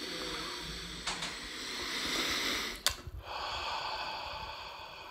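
A man taking a long, deep sniff of a beer at the rim of the glass, then a brief click and a long exhale through the open mouth.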